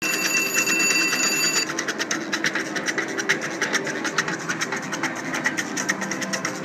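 IGT Double Sizzling Sevens slot machine's electronic bonus sounds: a held chiming tone for about a second and a half, then a rapid, even run of beeps, about seven a second, as the machine awards free spins.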